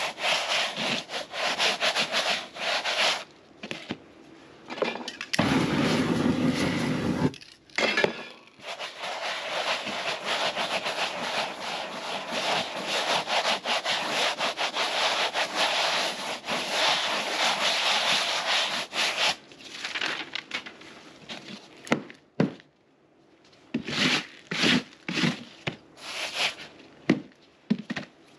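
A bare hand rubbing and sweeping over a canvas coated in rough, crusted dry paint: scraping strokes in quick runs with short pauses, and a few separate, sharper swipes near the end.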